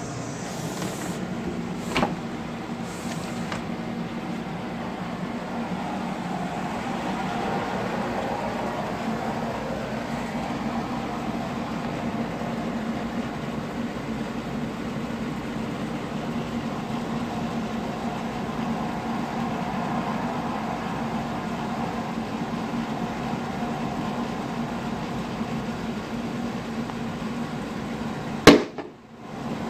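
A steady low hum runs throughout. Near the end comes a single sudden, loud rifle shot from a scoped rifle, the shot that kills the groundhog.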